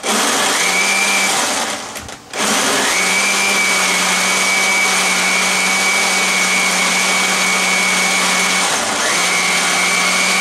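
Countertop blender crushing ice with strawberries and banana for a frozen daiquiri, run in pulses. A two-second burst is followed by a short stop, then a long steady run with a brief dip in speed near the end. Each start rises in pitch as the motor spins up.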